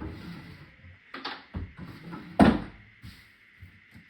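Household handling noises: a few knocks, with one loud thud about two and a half seconds in.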